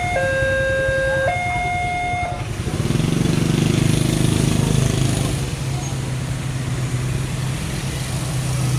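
Railway level-crossing alarm sounding a two-tone siren, its high and low notes alternating about once a second, which stops about two seconds in. A road vehicle's engine then runs steadily as traffic crosses after the train.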